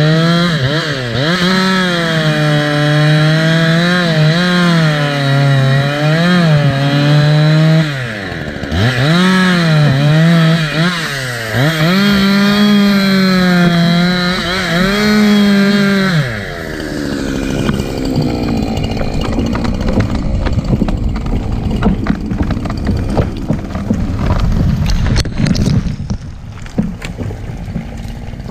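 Two-stroke chainsaw cutting through a tree trunk at full throttle, its pitch dipping and recovering as the bar bogs in the cut; about 16 seconds in the throttle is released and the pitch falls away. Then comes a long, loud rushing and cracking as the felled tree goes over, with sharp snaps and knocks near the end as it lands.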